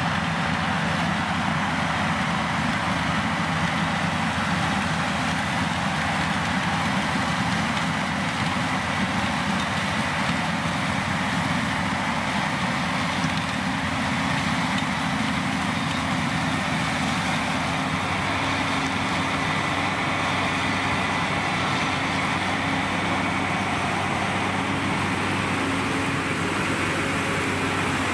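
Claas Lexion 750 combine harvester running steadily under load while threshing maize with an eight-row corn header: a constant machine drone of engine and threshing gear with a faint high whine.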